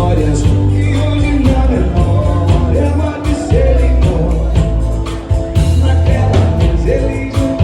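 A bolero being performed: a singer's melody over steady bass notes and a regular percussion beat.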